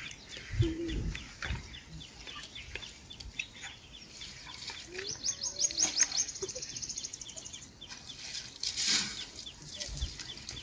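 Wild birds calling in short repeated notes, with a fast high trill about five seconds in and a brief rush of noise near the end.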